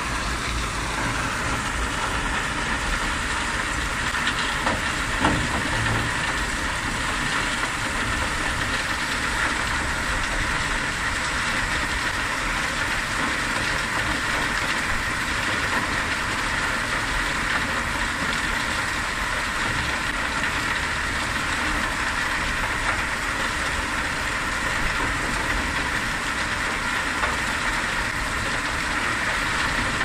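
Bucket-wheel sand washing machine and its belt conveyors running, a steady mechanical noise that does not change, with a single knock about five seconds in.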